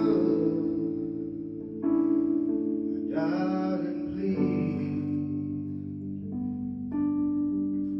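Slow live band music: sustained keyboard chords that change every second or two, with a man singing a line over them.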